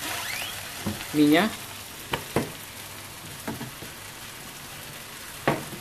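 Seafood and noodles frying in a pan, a steady sizzle, with a few sharp knocks spread through it.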